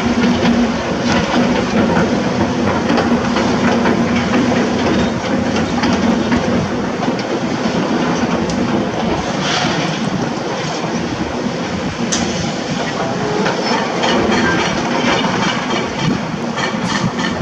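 Heavy construction machinery at work: an excavator's diesel engine running steadily under load, with a continual clatter of small knocks and scraping over it.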